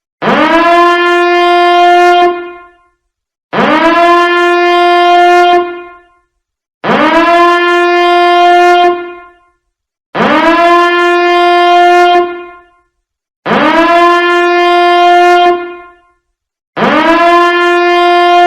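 Nuclear-attack alarm sound effect: a loud horn-like alarm tone that swoops up in pitch, holds steady for about two seconds and then dies away, sounding six times about every three seconds.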